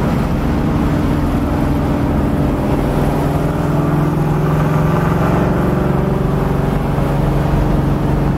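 A 302 cubic-inch Ford small-block V8 with a hydraulic roller cam, heard from inside the cabin of a 1964½ Mustang as it drives. The engine note eases slightly in the first second or so, then holds steady at a cruise.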